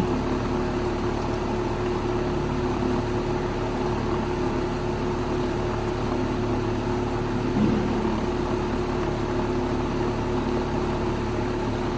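Air-conditioning condensing unit running steadily, its compressor and condenser fan making a continuous low hum.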